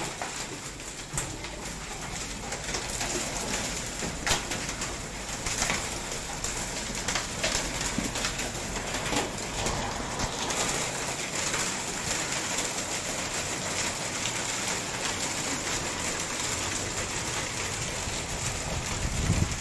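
Heavy rain with hail coming down, a steady hiss broken by many sharp clicks of hailstones striking.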